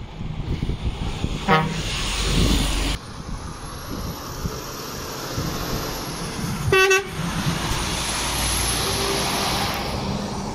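Truck horn sounding two short toots about five seconds apart, over the steady noise of heavy lorries driving.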